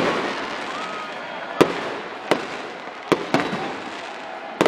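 Firecrackers going off: about six sharp bangs at uneven intervals, two of them close together near the middle, over steady crowd noise.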